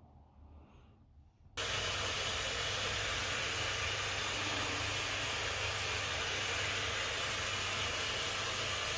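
A loud, steady hiss of noise that starts suddenly about a second and a half in and cuts off suddenly near the end.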